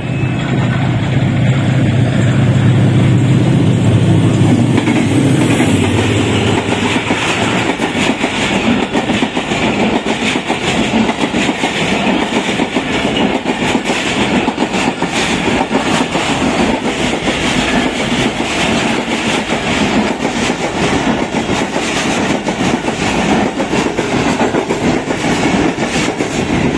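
A diesel locomotive passing close, its engine note strong for the first several seconds. Then the passenger coaches of an express train roll by with a steady rumble and a continuous clickety-clack of wheels over the rail joints.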